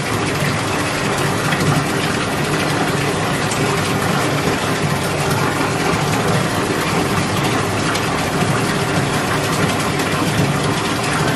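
Water running steadily from a bathtub tap into a tub of standing water, splashing as a dog is rinsed off.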